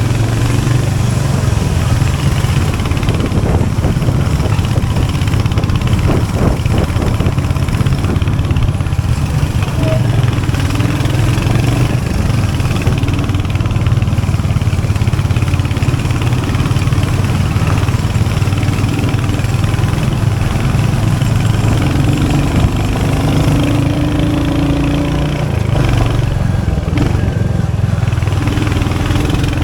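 Royal Enfield Hunter 350's 349cc single-cylinder J-series engine running steadily at an even level, dipping slightly and briefly changing note about 26 seconds in.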